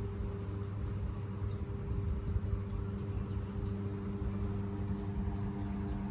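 A steady low hum holding one pitch, with a few faint, short, high chirps about two to three and a half seconds in.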